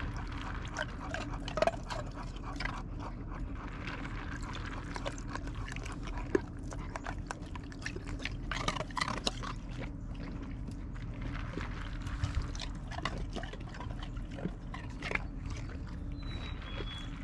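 A Great Pyrenees licking and crunching ice cubes from a bowl of water, with irregular clicks and crunches.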